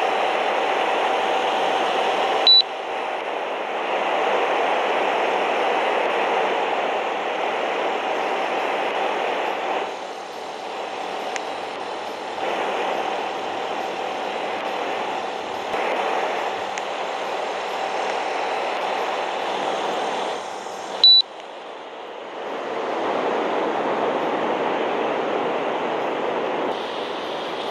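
Daikin split air conditioner running, a steady rush of fan airflow with a faint hum. It gives a short high beep twice, a few seconds in and again about three quarters of the way through, the unit acknowledging remote-control commands, and the running sound changes after each beep.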